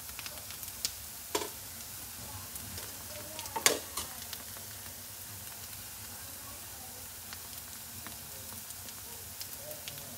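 Bánh chưng (sticky rice cake) shallow-frying in a pan, a steady sizzle with scattered pops and crackles, the loudest pop a few seconds in. It is being fried slowly to turn crisp.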